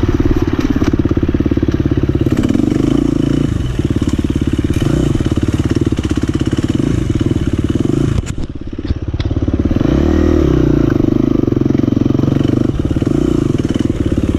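Dirt bike engine running hard along a trail, revs rising and falling with the throttle. About eight seconds in, the engine note drops briefly, then climbs again.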